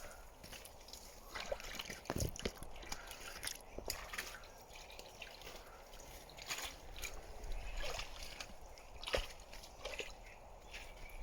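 Irregular small splashes, sloshes and drips of shallow water worked by hand while groping for fish.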